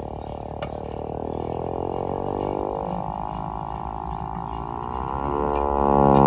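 VXS-1200M hand-crank tornado siren winding up: its rising tone climbs slowly in pitch and gets louder as the rotor spins faster, then swells sharply about five seconds in.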